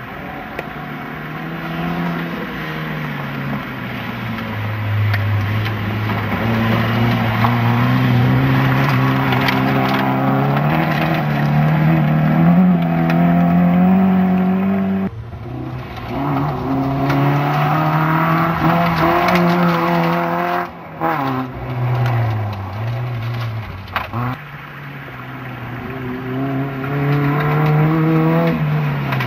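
Front-wheel-drive rally cars at full throttle, one after another, engines revving hard with the note climbing through the gears. The engine sound changes abruptly about halfway through and again a few seconds before the end as a new car takes over.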